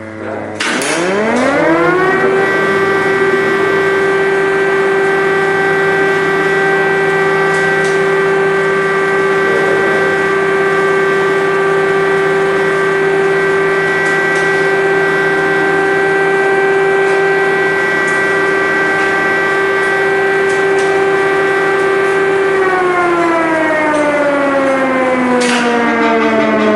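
Air-raid siren winding up in pitch over the first couple of seconds, holding a steady wail for about twenty seconds, then winding down near the end. The signal warns of a missile or air strike and calls people to take shelter.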